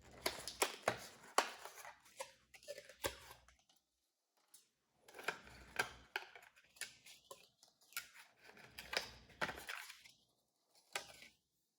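Light clicks, taps and short scraping rustles of small computer parts being handled on a bench, coming in scattered bunches with quiet gaps between.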